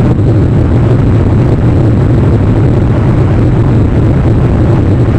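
Steady, loud low rumble with a hiss above it and no distinct events: wind noise on an outdoor wildlife camera's microphone.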